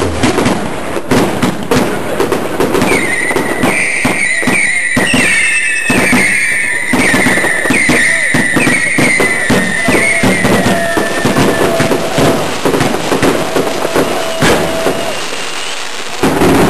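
WECO Mixed Emotions firework cake firing: a dense run of rapid bangs and crackling, with a string of whistling tones from about three to eleven seconds in.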